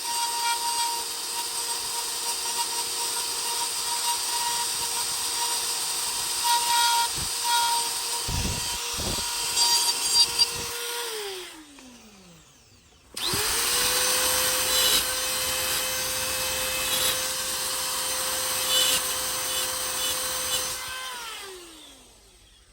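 Electric power tool running as it works wood, a steady motor whine with the rasp of the cutting. About eleven seconds in it is switched off and winds down, starts up again a couple of seconds later, and winds down again near the end.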